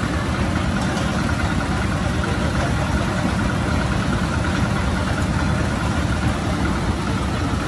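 An engine idling: a steady low rumble.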